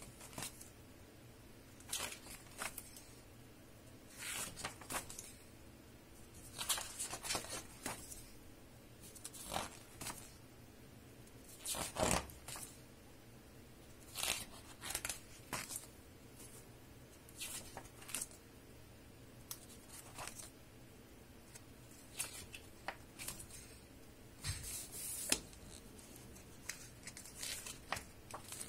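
Pages of a large picture book being turned by hand one after another: a short papery swish or rustle every two to three seconds.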